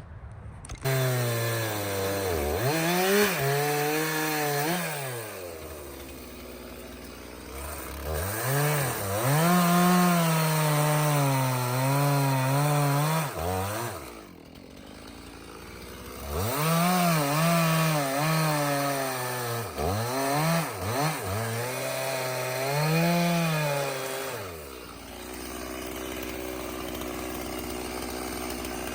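Stihl MS 391 two-stroke chainsaw revving and bucking small red oak, three cuts with the engine pitch dipping and recovering under load. It drops back to idle between cuts and at the end.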